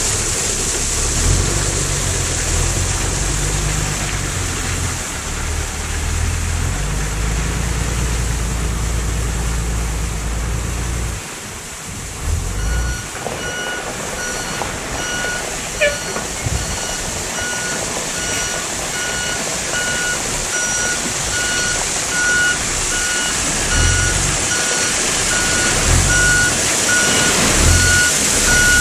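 A diesel vehicle engine running with shifting low notes, dropping off about eleven seconds in. Then a reversing alarm beeps steadily about once a second over the lower engine sound.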